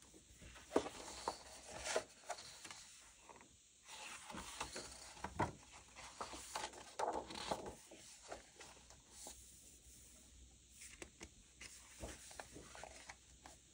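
Paper rustling as the cover and first pages of a paperback coloring book are opened and turned by hand: uneven rustles and rubs with a few sharp crinkles, busiest in the first half and sparser toward the end.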